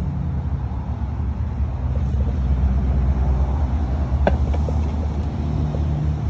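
A steady low motor-like rumble and hum. About four seconds in there is one sharp knock as the potted plant is set down on its tray, followed by a few faint ticks.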